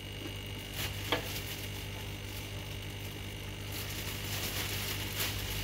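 Aquarium equipment running: a steady low hum with a faint fizzing hiss, and a couple of soft clicks about a second in.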